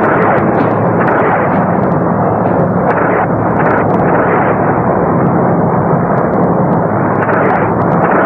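Dense, continuous battle noise of gunfire and explosions over a steady engine drone, with a few short crackles.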